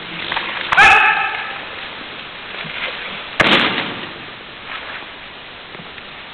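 A sharp, short martial-arts shout (kiai) with a strike about a second in. Then, about three and a half seconds in, a loud slap-thud of a body landing in a breakfall on the mat.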